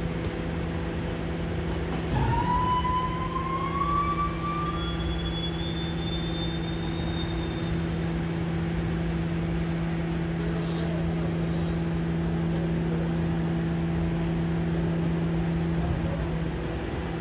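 BYD electric garbage truck's machinery humming steadily at a low pitch. About two seconds in, a whine rises slowly over a few seconds, and a few light clicks come near the middle.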